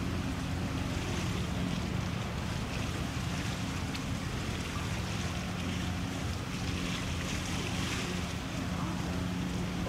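Steady low drone of a tugboat's diesel engine under way, over wind on the microphone and the wash of choppy water.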